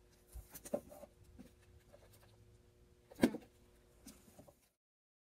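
Books being pulled off a wooden library shelf and handled: scattered light knocks and rustles, with one sharper knock a bit over three seconds in. The sound cuts off to silence near the end.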